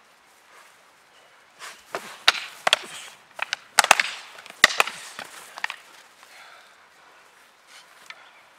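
Fighting sticks clacking in a rapid flurry of sharp wooden cracks as the two fighters exchange strikes, about a dozen blows over some four seconds starting about two seconds in.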